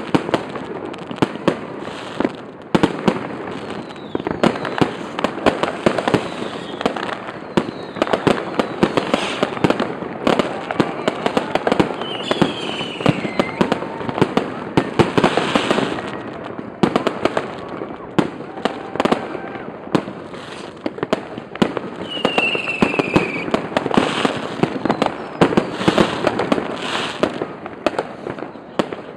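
Fireworks going off continuously: a dense barrage of bangs and crackles from many aerial shells and firecrackers at once.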